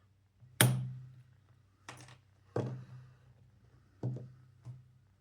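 Five sharp knocks, each dying away quickly, as an EVVA DPI lock cylinder and its parts are handled and knocked during disassembly. The loudest comes about half a second in.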